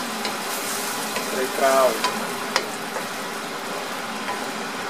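Sweet-and-sour sauce with vegetables sizzling steadily in a nonstick wok while a wooden spatula stirs it, with a few sharp taps of the spatula against the pan.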